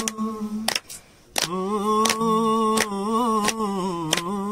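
Male voice singing a Kumaoni folk song unaccompanied, holding long drawn-out notes, with a short pause for breath about a second in. Hand claps keep time about every 0.7 s.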